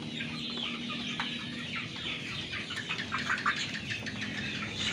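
A flock of young native village chickens (ayam kampung) clucking and peeping while they feed, many short calls overlapping.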